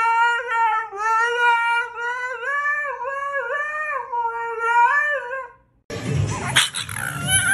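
Husky howling in long, wavering, drawn-out notes that slide up and down in pitch, one howl running into the next. It stops a little over five seconds in.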